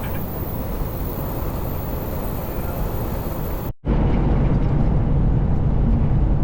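Steady low rumbling noise with no clear rhythm or tone. It cuts off abruptly about four seconds in and resumes louder and deeper.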